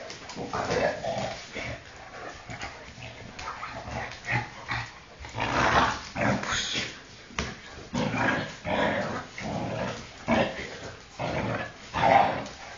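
Shar-pei making a long string of short vocal noises, one after another, while it moves about; the loudest comes near the end.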